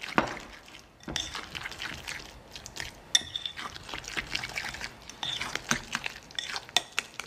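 Thick saltfish fritter batter being stirred in a glass bowl: wet stirring sounds with the utensil clicking and scraping irregularly against the glass.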